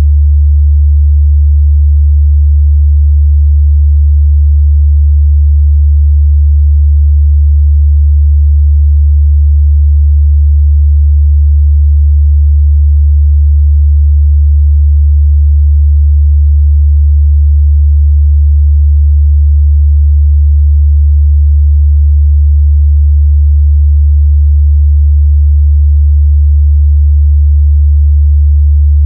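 A steady 73 Hz sine test tone: one deep, unchanging bass hum.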